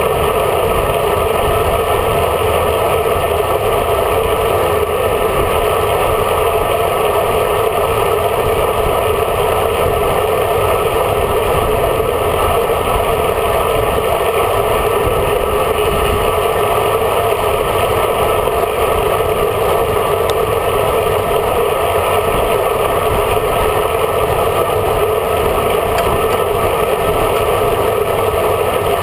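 Steady wind and tyre noise on the microphone of a camera riding along on a road bike at speed, a constant muffled rush that does not change.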